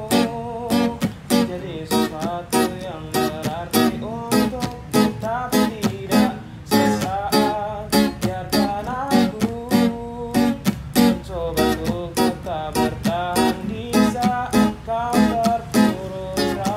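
Background song: a voice singing in Indonesian over strummed guitar, with a steady beat.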